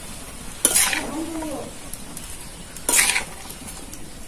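Metal spatula stirring chopped ash gourd in a steel karai: two loud scrapes about two seconds apart, over a steady low sizzle as the salted gourd cooks in the water it has released.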